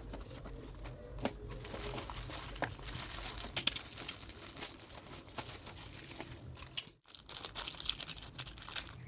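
Parcel packaging crinkling and rustling with many sharp little crackles as it is handled and opened. There is a brief break about seven seconds in.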